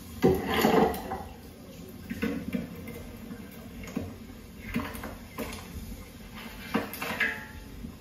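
Metal ladle clanking against a large cooking pot as mutton bones are scooped and stirred, the bones knocking together: about seven irregular clanks, loudest in a cluster near the start.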